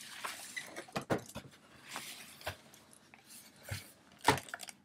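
Cardboard gift box being handled and its lid lifted off: rustling and scraping with several sharp knocks, the loudest about four seconds in.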